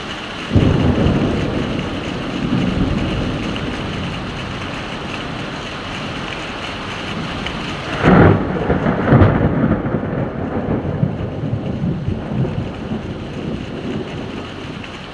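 Heavy rain falling steadily, with thunder: a low rumble breaks out about half a second in and rolls for several seconds, then a louder, sharper clap comes about eight seconds in and rumbles on for a few seconds more.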